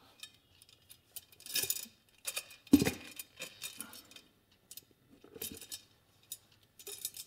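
Loose steel spokes clinking and rattling against the rim and hub of a partly laced Yamaha YL1 spoked front wheel as it is turned over by hand, in scattered jingles with one heavier knock about three seconds in.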